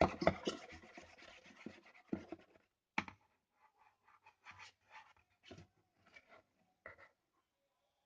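Scratching and rubbing sounds: a dense run of scrapes for about two and a half seconds, then scattered short scrapes and taps that stop about seven seconds in.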